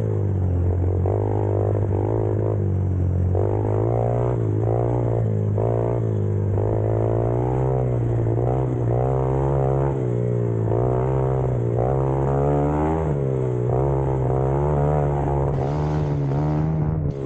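X-Pro Storm's engine running under way, its pitch rising and falling over and over as the throttle opens and closes, climbing a little near the end.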